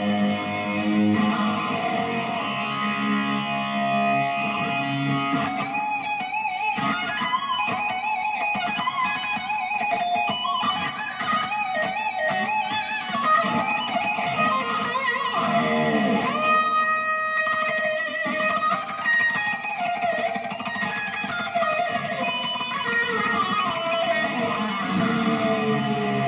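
Electric guitar played through a Valeton GP-50 multi-effects processor. It opens with chords for about five seconds, then moves to single-note lead lines with vibrato, and holds one sustained note about two-thirds of the way through.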